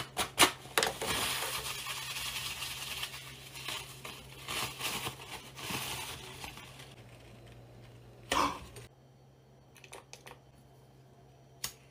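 Paper towel rustling and crinkling as it is handled and folded, with several sharp clicks and taps at the start and a short louder rustle a little after the middle.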